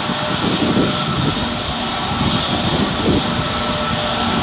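Airbus A320neo's Pratt & Whitney PW1100G geared turbofan engines running at idle thrust as it taxis, a steady jet hiss with several held tones over an uneven low rumble.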